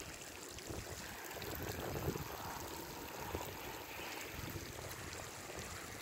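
Water trickling steadily from a garden hose into a shallow puddle, with wind buffeting the microphone.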